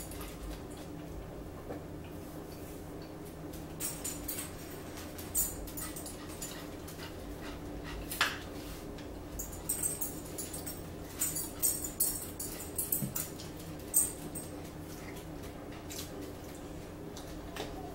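A dog whimpering faintly over a steady low hum, with scattered small clicks and clinks of eating and cutlery at the table.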